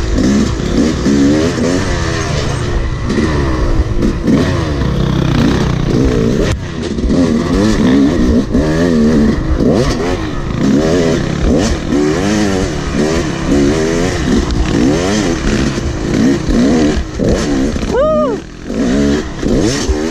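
Dirt bike engine heard from on the bike, revving up and down constantly under quick throttle changes on rough trail. A short rev rises and falls near the end.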